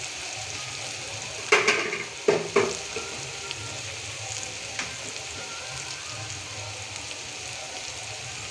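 Onion and ginger-garlic masala frying in mustard oil in a kadai, with a steady sizzle while it is stirred. About a second and a half in come three sharp knocks of the stirring spoon against the pan.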